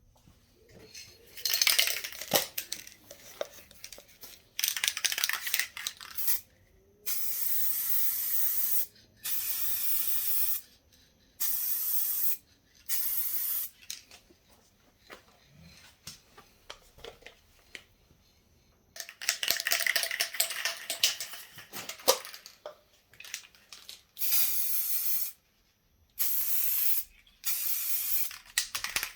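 Aerosol spray can sprayed in a string of separate hissing bursts, each about one to two seconds long, with small clicks and knocks from handling in the gaps between them.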